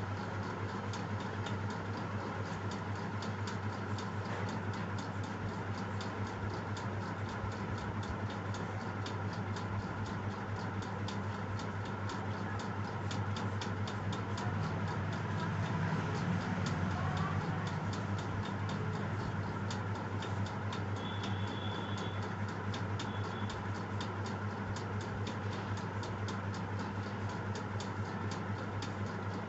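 Steady, regular mechanical ticking, several ticks a second, over a constant low hum.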